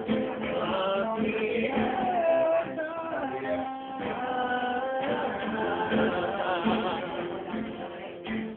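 Men singing a song together, with a steady beat underneath.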